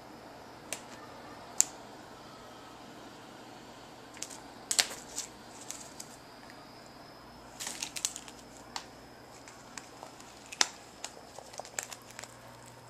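Siamese cat pawing and grabbing at a feather on bedsheets: scattered sharp scratches and short fabric rustles that come in several flurries.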